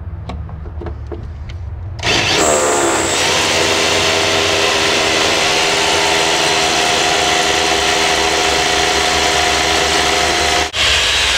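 Hammer drill with a masonry bit boring an anchor-bolt hole into a concrete floor. It starts about two seconds in, spins up and then runs steadily, with a momentary break near the end.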